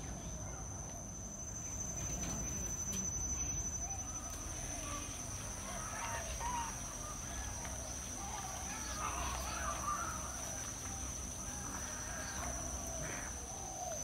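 A steady high-pitched insect drone, with scattered bird calls over a low background rumble.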